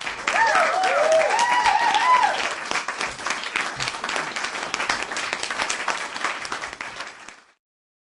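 Crowd applauding, with cheering whoops over the clapping for the first couple of seconds. The applause then tapers off and stops about seven and a half seconds in.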